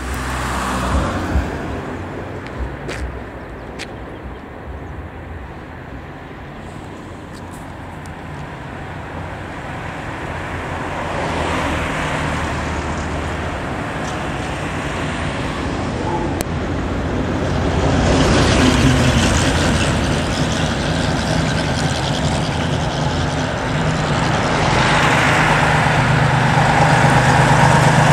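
Road traffic: motor vehicles running past with engine and tyre noise, swelling louder about a third of the way in and again near the end.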